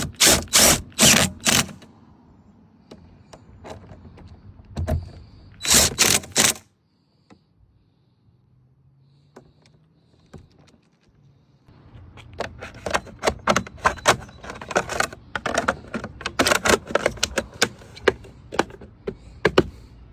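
Hand ratchet with a 10 mm socket clicking as the side mirror's mounting nuts are run down. A few loud clacks come at the start and again about six seconds in, then a long run of quick ratchet clicks fills the second half.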